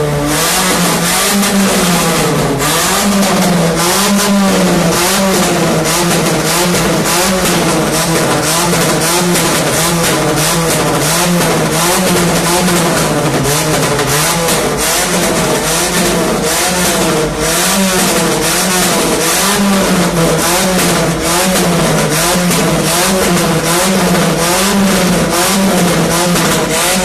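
Opel Kadett's engine revved up and down over and over at a standstill, with rapid sharp pops and cracks from deliberately provoked backfires in the exhaust. Extremely loud.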